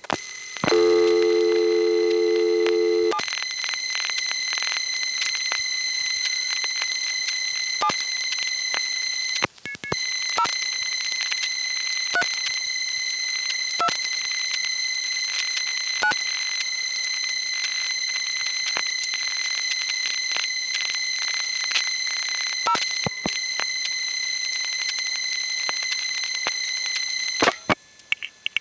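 Tape of an old analog telephone line. About a second in comes a loud low buzzing tone for two seconds, then a steady high whine with scattered clicks runs on, breaking briefly about ten seconds in and stopping near the end. The whine is noise from a faulty central-office power supply leaking onto the line.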